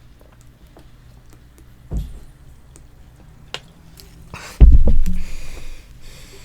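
A person chugging soda from a 2-litre bottle: quiet gulping, a small low thud about two seconds in, then a much louder low thump a little over four and a half seconds in, followed by a short hiss.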